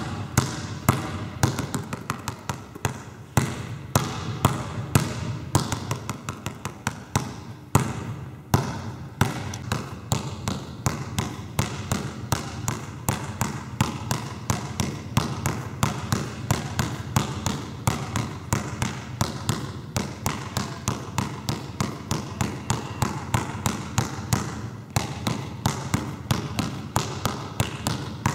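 Basketball being dribbled hard and fast on a wooden sports-hall floor, a steady run of sharp bounces several times a second as the ball is worked low from hand to hand.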